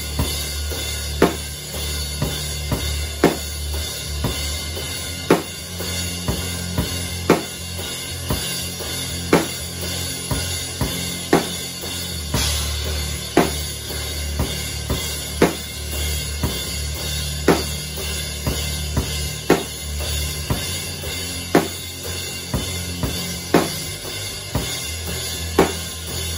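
Acoustic drum kit (Gretsch drums) playing a slow, heavy stoner/doom metal beat: a loud strike about every two seconds, with lighter hits between, over a constant wash of cymbals.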